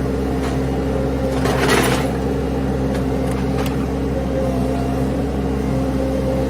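Mini skid steer's engine running steadily, with a short rush of noise about a second and a half in.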